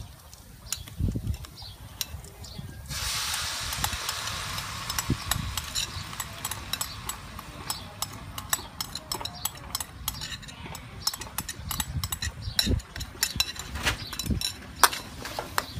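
A bowl of dark sauce poured into hot oil and frying garlic in a steel wok, setting off a sudden loud sizzle about three seconds in that gradually dies down. A metal spoon scraping the bowl and tapping the wok makes sharp clicks throughout.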